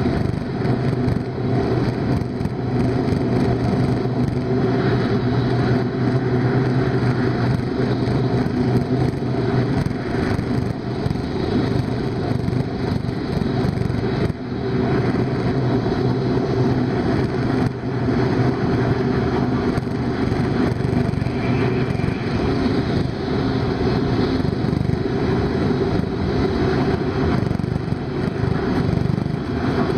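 Inside the passenger cabin of a Hokuriku Shinkansen E7/W7-series train running at speed: a steady, even rumble and hum of the train's running noise.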